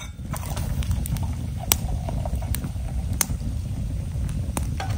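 Hot chocolate poured from a thermos into a metal mug, over a wood campfire that crackles with several sharp pops.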